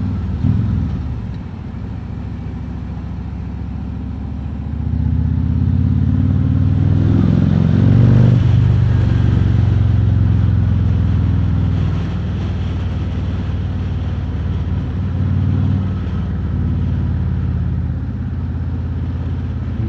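Harley-Davidson Road King Special's V-twin engine running under way. About five seconds in it accelerates, the pitch climbing and peaking around eight seconds, then it settles back to a steady cruise.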